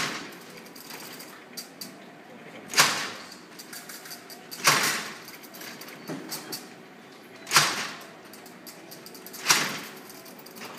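Babbage Difference Engine No. 2 running, its hand-cranked brass and iron mechanism giving a loud metallic clank about every two to three seconds, with lighter clicks and rattling between.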